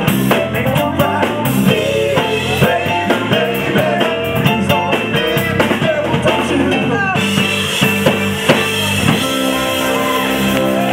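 Live soul band playing with drum kit, electric guitar and singing. About seven seconds in the cymbals drop out, and near the end the band holds long sustained notes.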